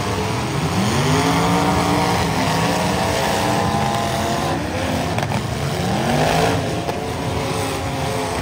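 Several demolition derby cars' engines running and revving hard, with two sharp rises in pitch about a second in and again near six seconds. A few short knocks from cars hitting each other come near the middle.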